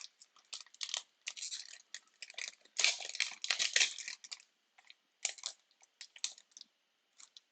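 Foil wrapper of a football trading-card pack being torn open and crinkled by hand, in irregular rustling bursts, loudest about three to four seconds in.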